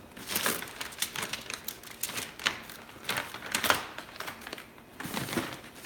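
Magazines and papers being handled and tossed into a cardboard box: a rapid, irregular string of paper rustles, slaps and light knocks.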